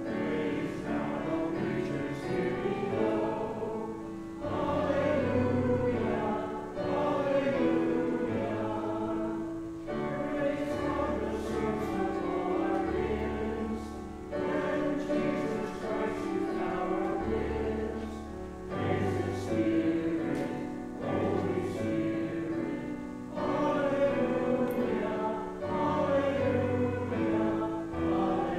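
Kawai digital piano accompanying a group of voices singing, in slow sustained phrases over held bass notes.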